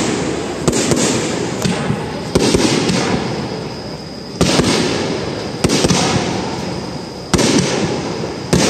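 Aerial fireworks shells bursting overhead, a loud bang every second or two, each followed by a rumbling, crackling tail that fades away.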